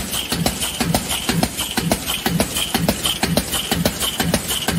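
Aluminum-cap sheet-feed punch press running in a steady cycle, about two strokes a second, with the clicking and rattling of punched caps and scrap sheet falling through the chute.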